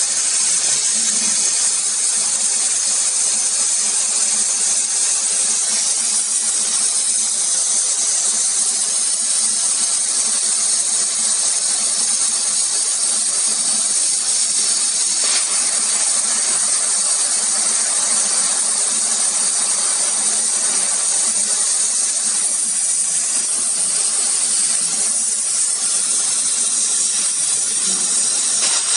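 CO2 laser cutter cutting and engraving plywood, heard as a steady high air hiss from the air assist blowing through the cutting head and the fume extraction.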